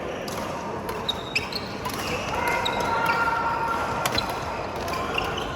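Badminton rally in an indoor hall: a few sharp racket strikes on the shuttlecock, with short squeaks of court shoes on the floor between them.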